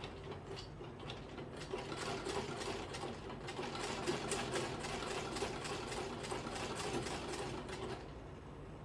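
Sewing machine stitching in a fast, even run over a low motor hum. It gets louder after about two seconds and stops near the end.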